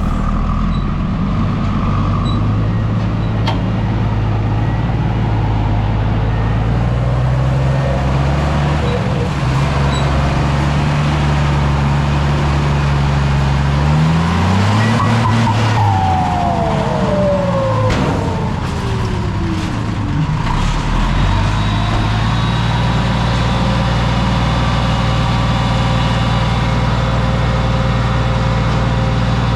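Heavy diesel dump truck engine with a loud exhaust, running and revving: its pitch rises and falls through the middle, with a falling whine, then it settles to a steady run.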